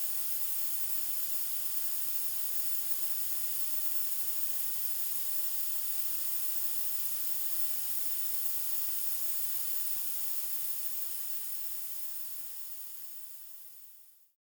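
Steady white noise, an even rushing hiss, fading out over the last few seconds to silence.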